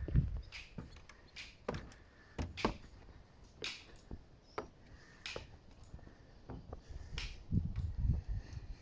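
Scattered light knocks and clicks at an irregular pace, with a low rumble near the start and another near the end.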